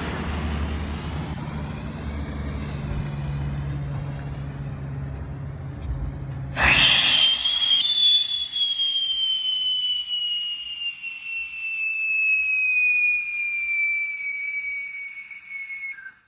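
A low steady rumble, then about six and a half seconds in a sudden loud burst as a whistling firework rocket lights, and a single whistle that starts high and falls slowly in pitch for about nine seconds before cutting off.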